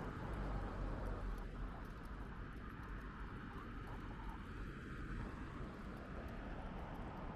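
City street ambience: a steady low rumble of traffic with a general hum, and a few faint light ticks.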